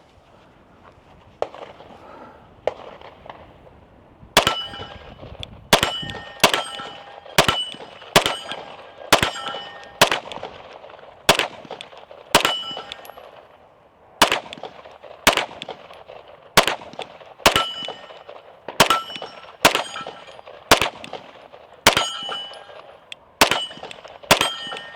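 9mm Staccato P pistol fired at close steel targets about once a second, each shot followed by the steel plate ringing on impact. There are around twenty shots, starting about four seconds in, with a short gap near the middle.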